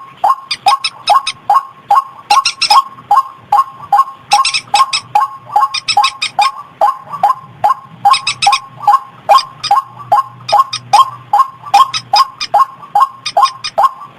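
White-breasted waterhen call played as a lure recording: a long, even run of short, slightly falling notes, about three a second.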